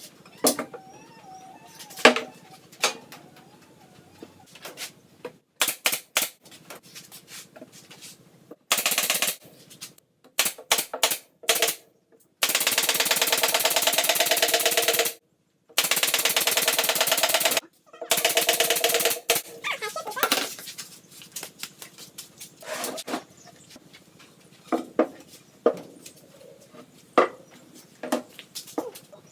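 A handheld power tool running in short bursts and then two longer runs of a few seconds each, each stopping abruptly, amid clicks and knocks of parts being handled.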